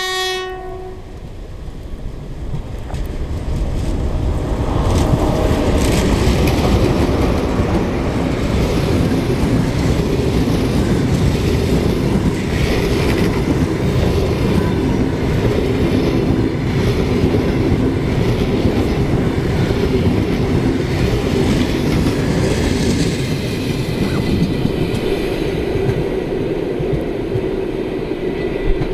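A train passing close by: a heavy rumble of wheels on rails with the clickety-clack of cars over the rail joints, building over the first few seconds and then running steadily. The last moment of a horn blast cuts off right at the start.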